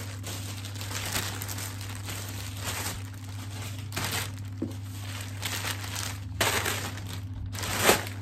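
Thin clear plastic packaging bags crinkling and rustling as they are handled, in a series of irregular bursts with the loudest crinkle near the end.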